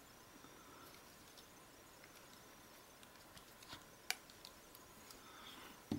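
Faint scattered clicks of a Samsung Galaxy Nexus's plastic rear housing being pressed and handled, with one sharper click about four seconds in.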